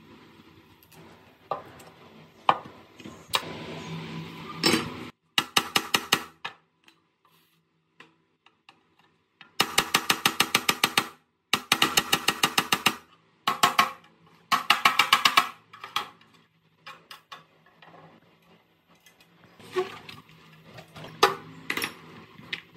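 Socket ratchet clicking in quick, even runs of about a second each as a bolt is worked loose, with separate knocks of rusty metal parts being handled before that.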